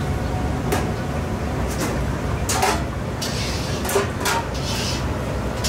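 Busy kitchen clatter of dishes and utensils, several short knocks and clinks spread through, over a steady low hum.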